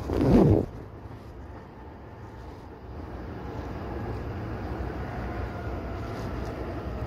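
Steady low hum inside a commuter train car standing at a station, swelling slightly about three seconds in, after a brief loud bump in the first half-second.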